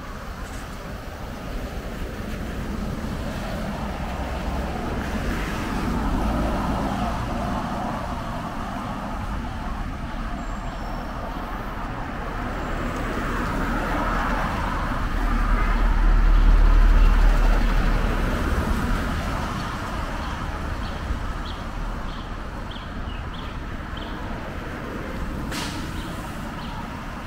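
City road traffic on a wet street, heard from a bicycle: steady engine and tyre noise that swells to its loudest a little past halfway as a heavy truck is passed, with a deep rumble. A single sharp click sounds near the end.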